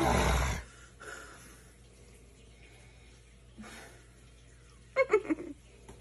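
A woman's loud startled cry, falling in pitch and cut short about half a second in. Then quiet with faint breathing, and a few short bursts of laughter about five seconds in.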